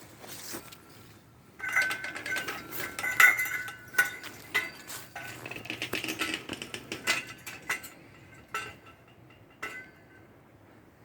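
Large metal wind chime ringing: a run of overlapping strikes, each leaving several ringing tones. It starts about two seconds in and thins to a couple of last strikes near the end.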